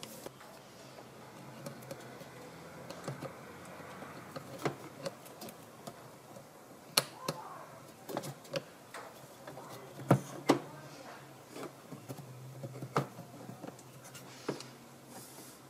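Irregular sharp clicks and light knocks of pliers working a spring hose clamp on a rubber hose, with handling of hoses and metal parts in an engine bay.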